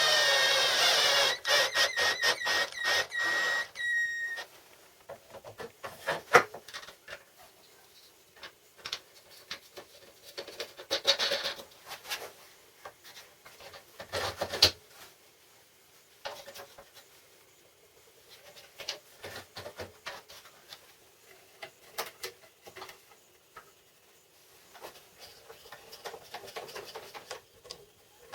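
A handheld power tool running with a steady whine, switched off and on in short stutters and stopped about four seconds in. Scattered light clicks, knocks and rubbing of parts being handled follow.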